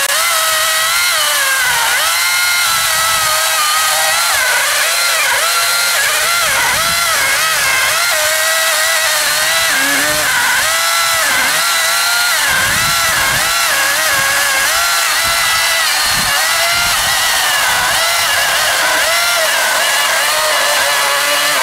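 Einhell GE-LC 36/35 LI 36-volt cordless chainsaw cutting through a thick log, its electric motor whine steady in level but dipping and recovering in pitch about once a second as the chain loads up in the cut.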